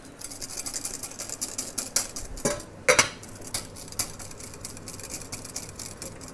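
Wire whisk beating a thickening carbonara sauce in a glass bowl, rapid even strokes of the wires scraping against the glass. There are a couple of sharper, louder clinks about three seconds in.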